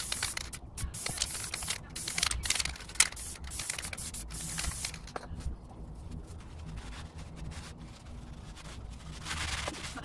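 Aerosol spray adhesive hissing from the can in several bursts over the first half, with one more near the end. Between them comes softer rustling of carpet being rubbed and pressed into place.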